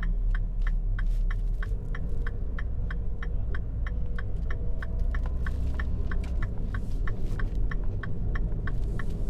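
A car driving slowly: a steady low engine and road rumble, with a rapid, even ticking about four times a second over it.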